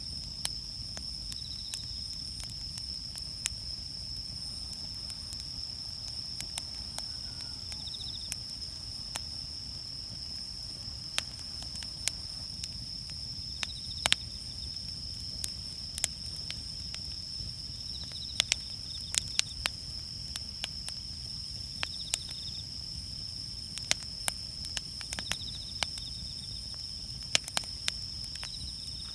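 Wood campfire crackling, with irregular sharp pops scattered throughout. A steady high-pitched tone runs underneath, with a few short chirps.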